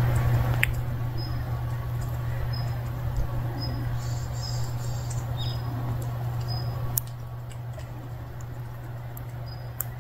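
Short, high-pitched chirps repeating roughly once a second over a steady low hum; the hum and background noise drop a little about seven seconds in.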